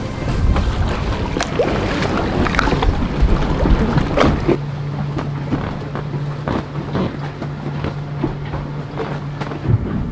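Wind and rain around a moored sailboat, with many scattered taps and knocks. A steady low hum comes in about halfway through and stops just before the end.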